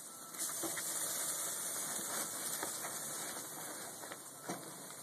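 Food sizzling on a hot barbecue grill: a steady high hiss that swells about half a second in and eases off toward the end, with a few light clicks.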